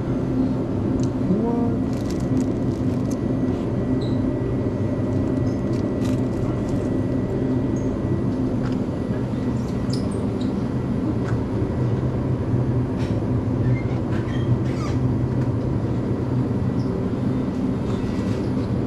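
Steady low hum and rumble of refrigerated display coolers and ventilation, with a few faint clicks.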